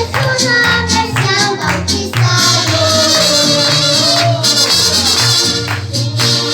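Upbeat song with a steady beat, bass and tambourine, with a sung melody.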